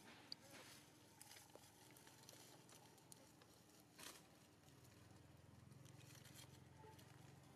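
Near silence with faint crackles and rustles of dry leaf litter as a macaque moves on the forest floor. There is one sharper crackle about halfway through, and a low steady buzz begins about two-thirds of the way in.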